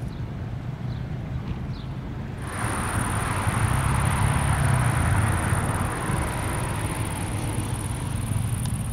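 Jet engines of an Airbus A330 MRTT (RAF Voyager), Rolls-Royce Trent 700 turbofans, running as the tanker taxies. At first there is a steady low rumble. About two and a half seconds in it changes abruptly to louder engine noise with a high steady whine.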